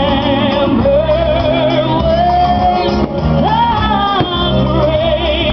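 Music with singing: a voice holding long, wavering notes over sustained bass.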